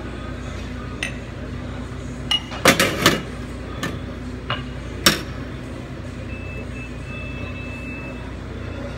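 Glasses and ceramic cups clinking against each other and against the metal of an espresso machine as they are handled: a few sharp knocks, the loudest cluster about three seconds in and another near five seconds, over a steady low background hum.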